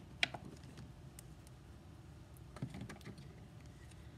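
A few light clicks and taps of small paint containers being handled and set down: one sharp click about a quarter second in, then a short cluster of clicks a little before three seconds.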